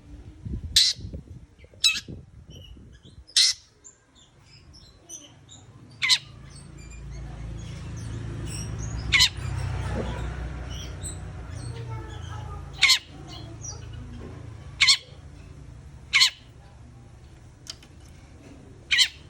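Long-tailed shrike (cendet) giving short, harsh squawking calls, about nine of them at irregular gaps of one to four seconds, with a low steady rumble underneath in the middle part.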